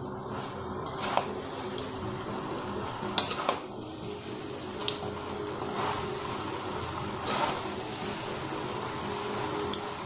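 Noodles and vegetables stir-frying in a kadai over a high flame: a steady frying hiss, with the spatula knocking and scraping against the pan about seven times, and a faint steady hum underneath.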